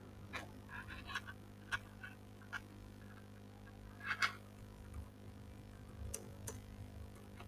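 Computer keyboard keys clicking irregularly as text is typed, with a steady low electrical hum underneath.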